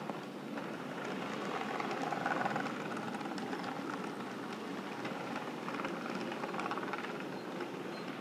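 HO-scale model freight train rolling past: a steady rumble of wagon wheels on the track, with fine rapid clicking over the rail joints.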